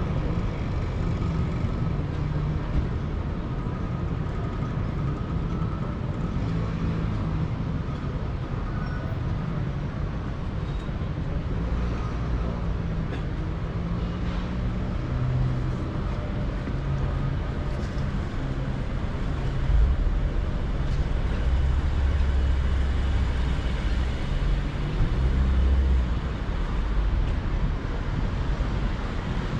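City street traffic: road vehicles running past in a steady wash of engine and tyre noise. About twenty seconds in, a deeper rumble swells for several seconds as a heavier vehicle passes close.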